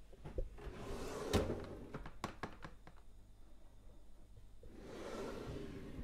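Kitchen drawer sliding on its runners and shutting with a solid thunk about a second and a half in, followed by a few light clicks. It slides again, growing louder, near the end.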